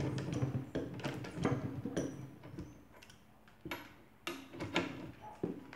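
Ratchet wrench turning the forcing screw of a coil spring compressor on a car strut, backing it off once the spring tension is off. It makes irregular clicks and metallic knocks and clinks as the tool and compressor hooks are handled.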